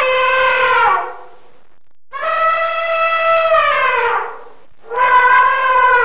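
Elephant trumpeting: three long, brassy calls, the first ending about a second in and the second sliding down in pitch as it fades, with the third starting near the end.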